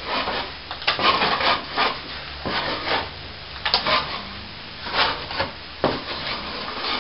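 A plastering scraper dragged across partly set plaster on a ceiling patch, scraping it back level in about a dozen short, irregular strokes.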